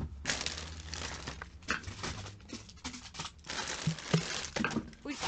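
Clear plastic packaging crinkling and rustling in irregular bursts as products are handled, with a few sharp knocks of items being moved.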